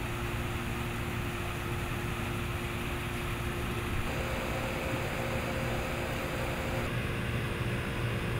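A steady low mechanical hum, like a machine running at an even pace, with no distinct knocks or calls standing out.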